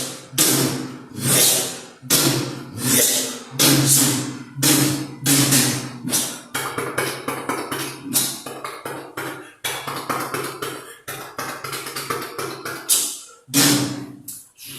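Firecracker explosions imitated with the voice: a series of sharp bangs about one a second, then a fast crackling run like a string of crackers through the middle, then a few more single bangs near the end.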